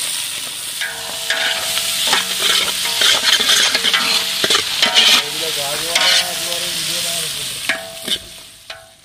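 Chopped onions and green chillies sizzling in hot oil in an aluminium pot, with a metal ladle stirring and scraping against the pot. The sizzle dies down near the end.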